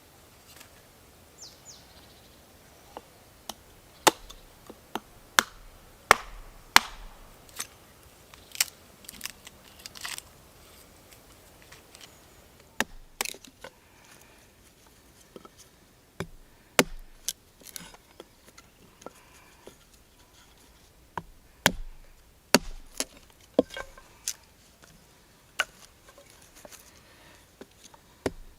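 Firewood being split by hand: sharp wooden knocks at irregular intervals, coming in runs with short pauses between them.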